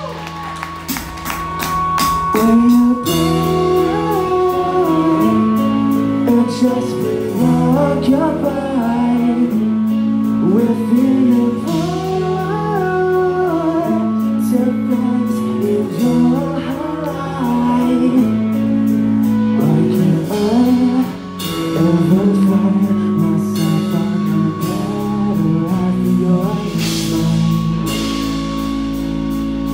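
Live rock band playing a song: electric guitars, bass guitar and drum kit, with lead vocals sung over them.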